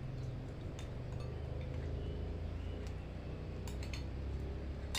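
A few faint clinks of dishes and cutlery over a steady low hum.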